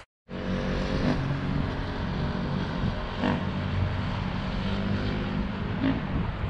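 Road traffic: a steady drone of engines and tyres from vehicles passing on a road.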